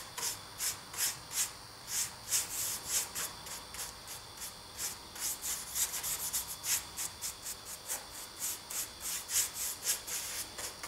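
A paintbrush scrubbing dark rust weathering powder onto a black model roof panel in quick back-and-forth strokes, a few a second, each a short dry bristle hiss.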